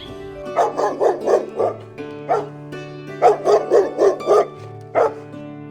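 Dog barking: a quick run of about five barks, a single bark, a run of about six barks, then one more. Steady background music plays underneath.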